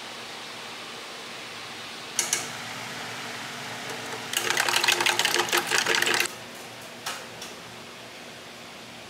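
A paintbrush stirred in a metal tin can of acrylic paint, its handle clicking rapidly against the can for about two seconds, after one short knock; two light taps follow. A steady low hiss lies underneath.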